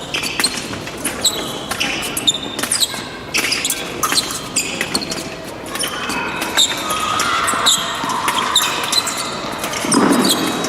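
Fencers' shoes stamping and squeaking on the piste in quick, irregular footwork during an épée bout, echoing in a large hall.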